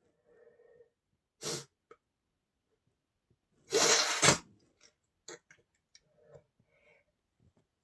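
A man sneezes once, loud and sharp, about four seconds in; the title puts the sneeze down to an allergy to flowers. A shorter burst of breath comes about a second and a half in, and faint short breathy sounds come before and after.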